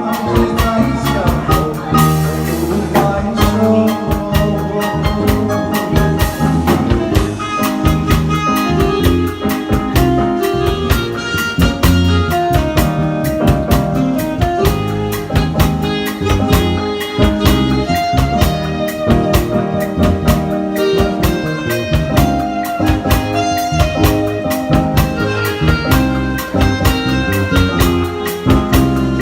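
Instrumental interlude of a song: a lead melody of held notes over a steady drum beat and bass, with no singing.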